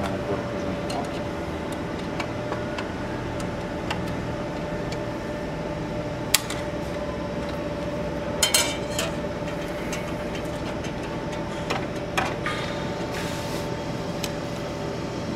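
Metal parts of a benchtop bottle labelling machine clicking and knocking a few times as they are adjusted by hand, over a steady mechanical hum. There is a sharp click about six seconds in, a short cluster of clicks around eight and a half seconds, and two more near twelve seconds.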